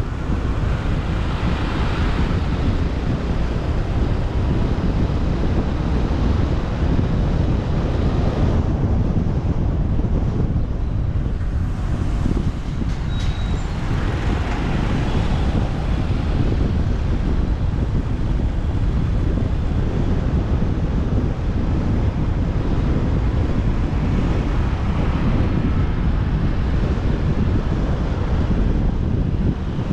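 Wind buffeting the microphone of a camera riding on a moving motorbike, with road and traffic noise underneath. The noise swells briefly a few times, about two seconds in, in the middle and near the end.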